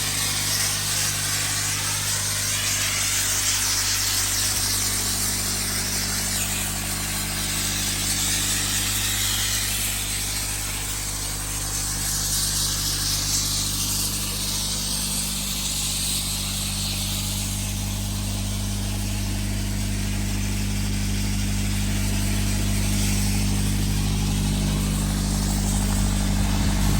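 Abrasive media blasting: a steady hiss from the blast nozzle that swells and fades as it sweeps the hull, over the constant drone of the air compressor's engine.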